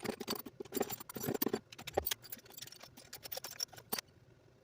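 Quick irregular clicks and rattles of small hard parts and tools being handled during an RC car repair, busiest in the first second and a half, then sparser, stopping about four seconds in.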